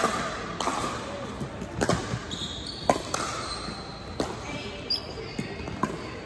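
Pickleball rally: sharp, irregular pops of paddles striking the hollow plastic ball and the ball bouncing, echoing in a large gym. Brief high sneaker squeaks on the hardwood floor come in between the hits.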